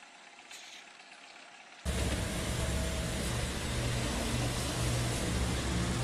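A faint background for about two seconds, then a sudden cut to the loud, steady running of road-paving machinery's engine.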